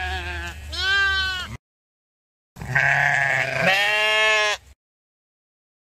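Sheep bleating twice: two long bleats of about two seconds each, a second apart, each breaking into a higher, arching second half.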